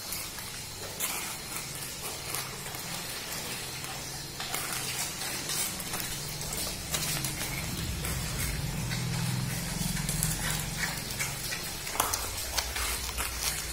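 Rottweiler puppies eating from stainless steel bowls: scattered clicks, clinks and chewing noises as the bowls knock on the floor. A low hum swells for a few seconds in the middle.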